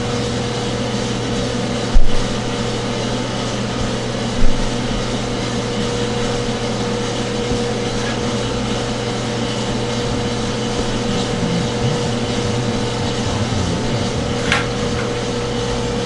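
Small 2.5-kilo gas-fired drum coffee roaster running mid-roast: a steady hum from the machine as the stainless steel drum turns with the beans tumbling inside. Two sharp thumps cut through, about two seconds in and again about four and a half seconds in.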